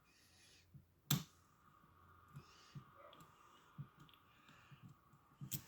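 Faint clicks and ticks of a lock pick and tension wrench working the pin tumblers in one of the two cores of an old Russian dual-custody padlock, with a sharper click about a second in and another near the end.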